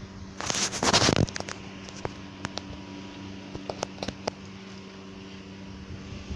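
Strong wind gusting across the microphone in a loud rush for under a second, about half a second in, followed by a scatter of sharp clicks over a faint steady hum.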